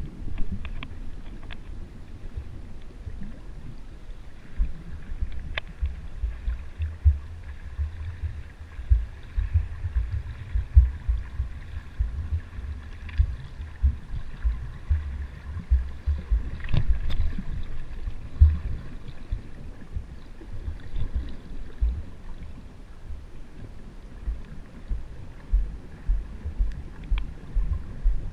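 Muffled underwater sound from a GoPro in its waterproof housing: irregular low thumps and rumbles of water moving against the housing, with a few faint sharp clicks.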